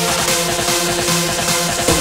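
Electronic dance music with a steady driving beat and held synth tones.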